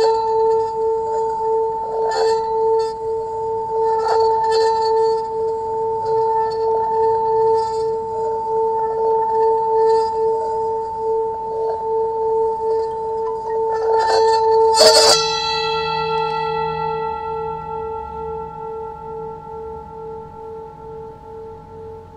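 Singing bowl ringing with a steady, slowly wobbling tone, touched by light taps every second or two. About fifteen seconds in, a hard strike sets off a brighter ring that slowly fades away.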